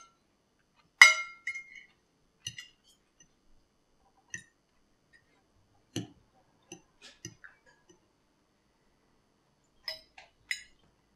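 Cutlery clinking against plates and bowls: a scattering of separate clinks and light knocks. The loudest, about a second in, rings briefly.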